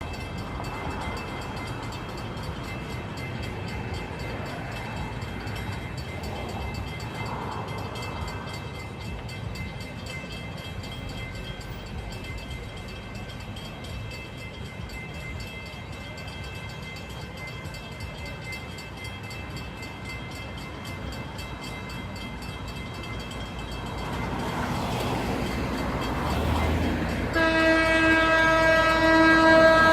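Approaching CTrail commuter train, a cab car leading with a GP40-3H diesel pushing, grows louder. Near the end its horn sounds one loud, steady chord, the warning blast for the grade crossing.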